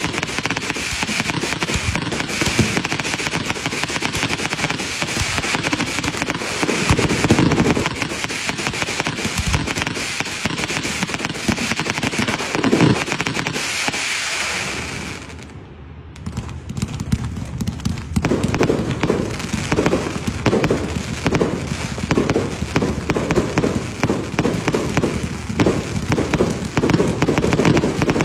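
Fireworks barrage firing shells in quick succession, their bursts crackling and banging without pause. About halfway through it briefly dies down, then resumes as a fast, even run of bangs.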